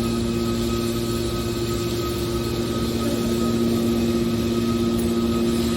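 Hydraulic scrap-metal baler running with a steady hum, its pump and motor holding one even pitch with no strokes or impacts.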